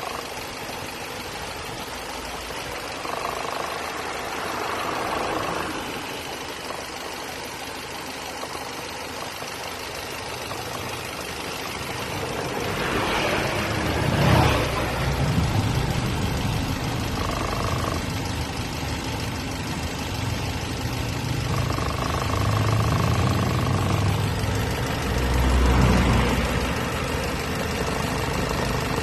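Mercedes B180 engine running, with a strange steady tone that comes and goes for a few seconds at a time, from the hose connected to the brake servo. The engine sound grows louder twice, about halfway through and near the end.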